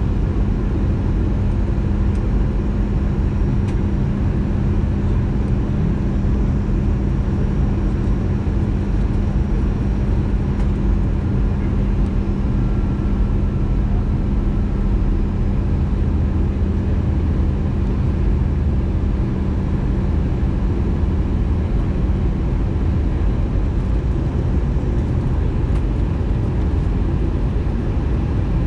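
Steady cabin noise of an Airbus A320-214 in flight: the even rumble of airflow and its CFM56 engines, with a steady low hum that fades out near the end.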